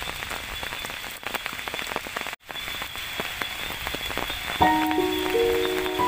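Rain falling, with many small raindrop ticks on nearby surfaces. The sound cuts out for an instant about two and a half seconds in, and keyboard music with steady held notes comes in about four and a half seconds in.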